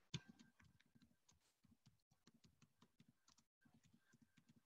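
Faint keystrokes on a computer keyboard, typing in quick, irregular taps.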